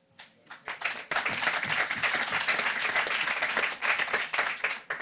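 Group applause: a few separate claps build within about a second into steady, dense clapping, which thins out near the end.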